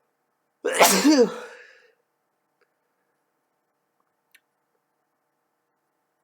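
A person sneezing once, loudly, about half a second in; the sneeze falls in pitch as it trails off. A faint click follows a few seconds later.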